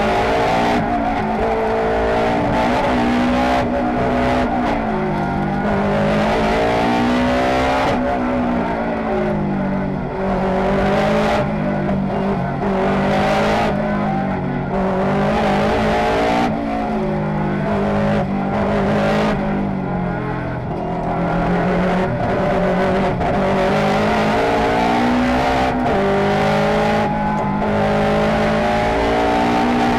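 Turbocharged four-cylinder engine of a hill-climb car driven hard, recorded onboard. It revs up through the gears, with the pitch climbing under acceleration and falling back at each shift, and it eases off briefly about a third and two-thirds of the way through.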